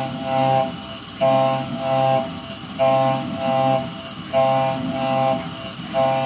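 CNC end mill cutting 8670M carbon alloy steel, cycling in a steady rhythm. About every one and a half seconds there is a pair of loud, pitched, buzzing cutting bursts as the tool engages the steel, with quieter machine running in between.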